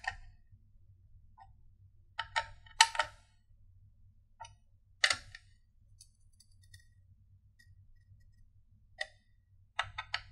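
Sharp small clicks and ticks in short irregular clusters, a second or a few seconds apart, from hands working the screws of a der8auer OC Frame clamped around a CPU in its motherboard socket, tightening them in small turns.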